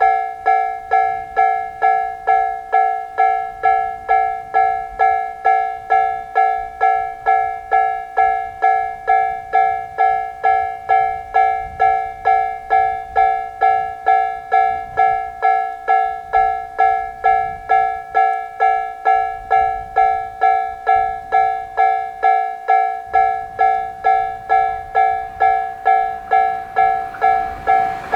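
Japanese railway level crossing alarm: electronic bell tones struck about twice a second, steady and unchanging. Two alarms of different tone, a Nikko-type and a Tojo-type 'pon-pon', ring in step with each other.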